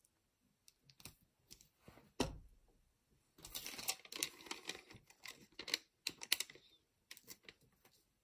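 Clear plastic packaging being handled: scattered light clicks, a thump about two seconds in, then a few seconds of plastic crinkling and rustling with more clicks near the end.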